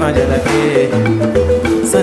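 Background music: a tune of short pitched notes over a repeating bass line.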